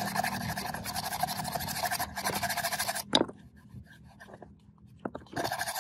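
Wire brush scrubbing the rubber bellows boot of a steering rack in quick, rapid strokes. A sharp knock about three seconds in, a pause of about two seconds, then the scrubbing starts again near the end.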